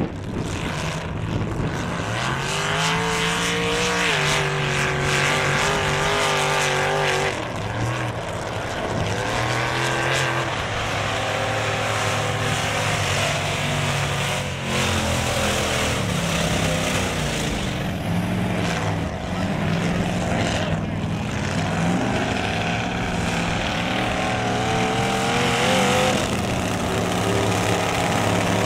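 Lifted mud trucks' engines revving hard on a dirt course, the pitch rising and falling again and again as the throttle comes on and off.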